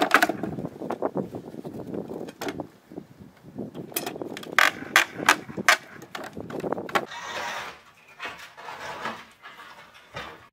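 Wooden pallet boards knocking and clattering against each other as they are handled and unloaded from a van: many irregular sharp knocks, a cluster of loud ones midway, then a rougher scraping stretch near the end.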